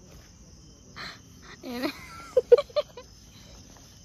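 A woman laughing in a few short, loud bursts about two seconds in, over the steady high chirring of crickets.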